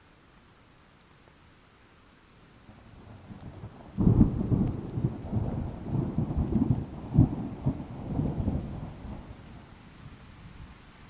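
A thunderclap over light rain: a low rumble builds, then a sudden loud crack about four seconds in, followed by rolling rumbles that fade away over the next several seconds.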